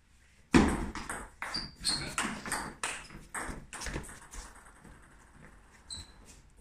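Table tennis rally: the celluloid ball clacks off bats and table in quick succession, starting with a sharp loud hit about half a second in and ending about four and a half seconds in. A single ball bounce pings near the end.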